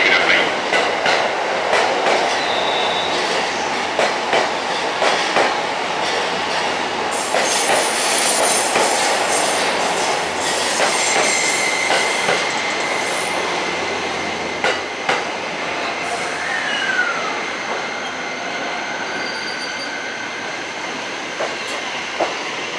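JR East E261 series (Saphir Odoriko) electric train rolling slowly past a platform. Its wheels clack irregularly over the rail joints, and a thin high wheel squeal sounds through the middle.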